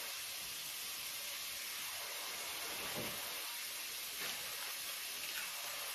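Shrimp frying in oil in a pot on a gas stove, a steady sizzle.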